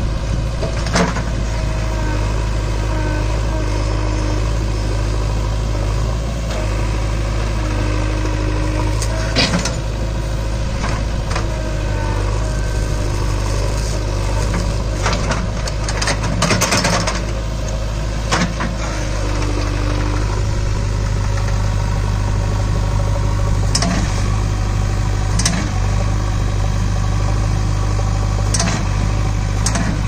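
JCB 3DX backhoe loader's diesel engine running steadily under load while the backhoe digs, with a handful of short metallic clanks and knocks from the working arm and bucket.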